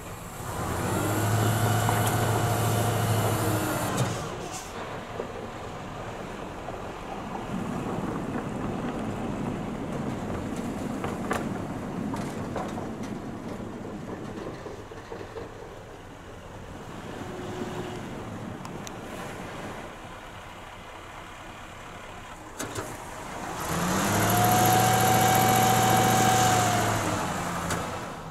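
Snow-removal truck running, with two loud spells of a steady whining tone, each about three seconds long, that swell in, hold and fall away; between them a lower, uneven engine noise.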